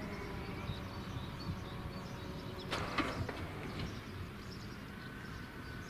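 Level crossing barrier arms rising after the warning has ended, with a short rattle about three seconds in. A low steady rumble runs underneath.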